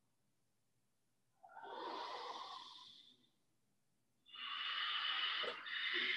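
Slow ujjayi breaths, a soft hiss drawn through a narrowed throat. One breath comes about a second and a half in and lasts about two seconds. A longer, louder one starts about four seconds in, with a brief click partway through it.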